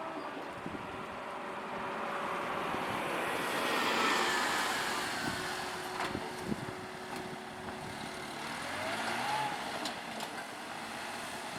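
A road vehicle passing: its noise swells to its loudest about four seconds in and then fades, with two sharp knocks about six seconds in.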